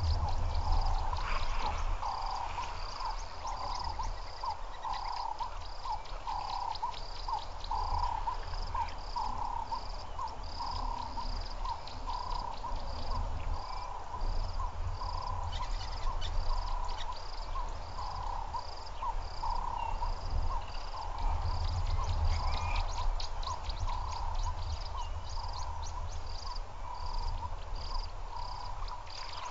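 Frogs calling in a steady chorus: a mid-pitched call and a higher call, each repeated about twice a second, over a low steady rumble.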